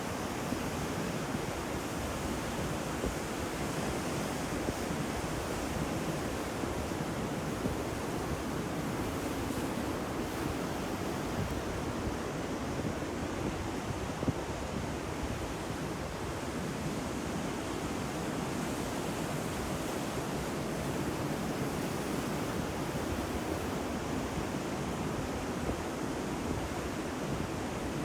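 Ocean surf: waves breaking on a shore in a steady, continuous wash of noise.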